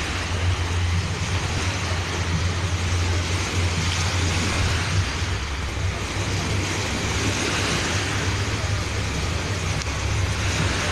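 Surf washing in at the shoreline with wind rumbling on the microphone: a steady hiss of water over a constant low rumble.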